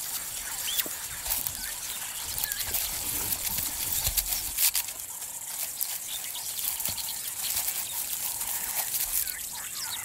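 Light rustling and snapping of dry grass and twigs as an African wild dog moves and rolls about, with scattered small bird chirps over a steady hiss.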